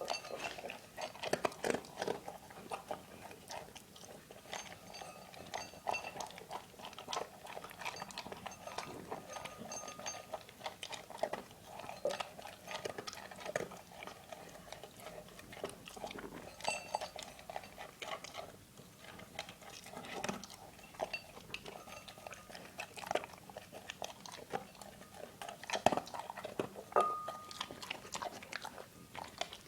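A dog eating: irregular crunching and chewing that keeps going, with many sharp bites and clicks.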